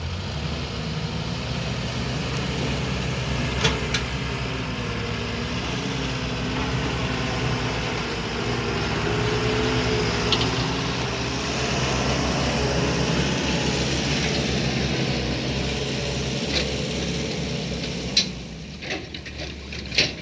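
Heavy diesel engine running steadily, its pitch wavering a little in the middle as if under load, with a few sharp knocks scattered through. The engine sound falls away near the end.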